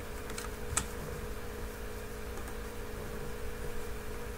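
A few isolated computer keyboard clicks, the sharpest about a second in, over a steady low electrical hum.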